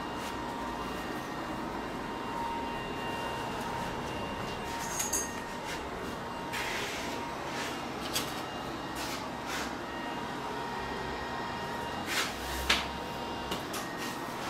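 Steady workshop background hum with a faint steady tone, broken by a few short knocks and clatters from someone moving about.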